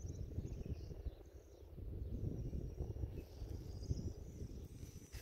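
Gusty wind rumbling on the microphone, with faint high chirping above it and a thin high whine in the second half.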